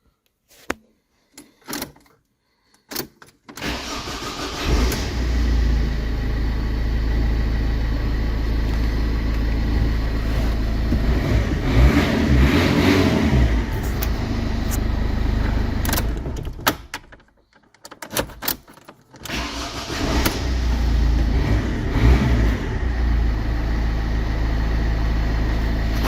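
A few clicks, then a Ford car engine cranks, starts and runs, rising briefly as it is revved. About two-thirds of the way in it is switched off, then started again and revved once more.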